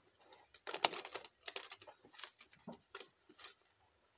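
A deck of tarot cards handled on a tabletop: a run of light, irregular clicks and taps as cards are set down and the deck is squared.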